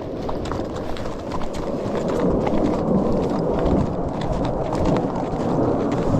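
Horse walking with hooves clopping steadily on a dirt trail, while the low rumble of a noisy airplane overhead grows louder from about two seconds in.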